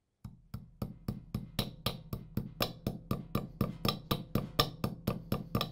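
Hammer tapping a pin down into the M1014 shotgun's buttstock assembly: sharp, evenly spaced strikes at about four a second, starting a moment in.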